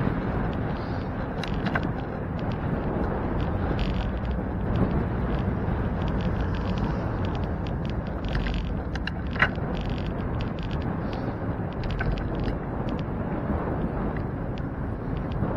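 Steady rumble of wind and road noise on a camera riding on a moving bicycle, with scattered light clicks and rattles and one sharper click about nine seconds in.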